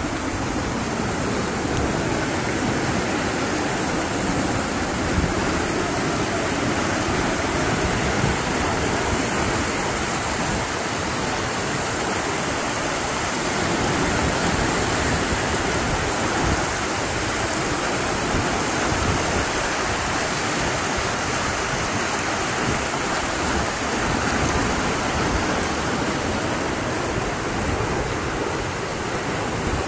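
Muddy floodwater rushing and churning down a street in a storm: a steady, unbroken rushing.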